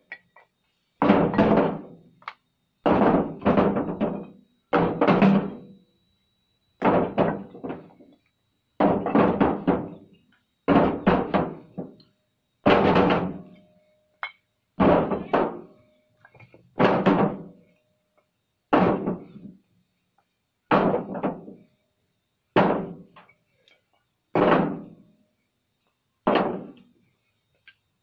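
Old fired bricks being handled and knocked: a heavy thunk about every two seconds, sometimes two close together, each dying away over about a second.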